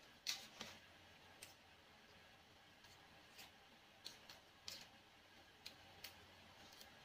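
Faint, irregular clicks and small knocks from a small knife peeling shallots by hand over a stone mortar, about ten in all, the sharpest near the start.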